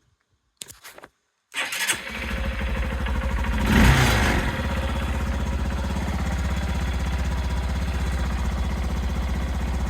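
Honda CBF125's single-cylinder four-stroke engine starting up after a few faint clicks, revving briefly once, then settling into a steady idle.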